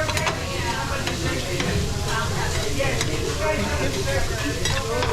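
Food sizzling on a teppanyaki griddle, with metal spatulas clicking and scraping against the hot steel plate as the chef stirs, and a murmur of voices underneath.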